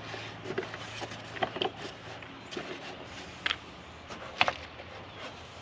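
Scattered light knocks and clicks of hard parts being handled, with two sharper knocks about three and a half and four and a half seconds in, over a faint steady low hum.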